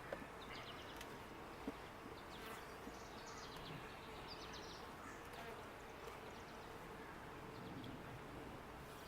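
Faint, steady buzzing of a honeybee colony in an opened hive, with a couple of light clicks in the first two seconds.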